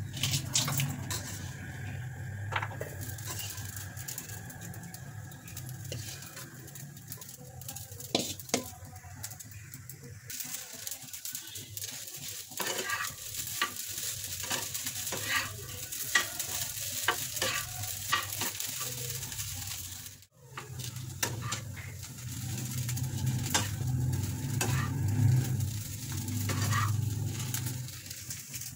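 Metal spatula stirring and scraping sabudana khichdi (tapioca pearls with crushed peanuts) around a nonstick frying pan, with a light sizzle of oil and irregular taps of the spatula against the pan.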